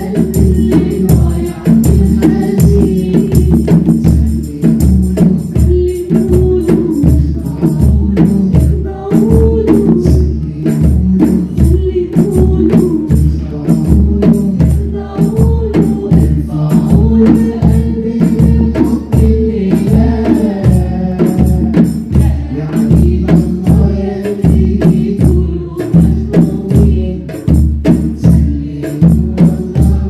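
A group of voices singing an Arabic song together, with a hand frame drum beating a steady rhythm of about two strokes a second.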